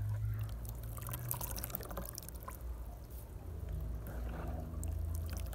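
Coconut milk being pressed out by hand: grated coconut squeezed in warm water over a plastic basin, the milk running and dripping back into the basin in many small, irregular splashes, over a low steady hum.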